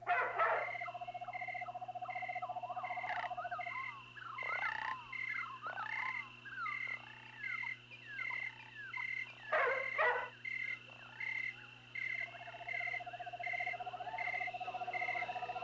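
Night-time swamp and forest sounds: a frog's pulsed trill at the start and again near the end, over a steady insect drone with a regular chirp about once a second. Short croaking and gliding calls run throughout, with two louder bursts of calls, one at the start and one about ten seconds in.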